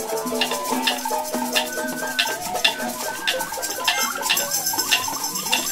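Group free improvisation without rhythm or harmony: rattles and shakers clicking unevenly over several held pitched tones, one of them high and wavering, with a ringing high shimmer joining near the end.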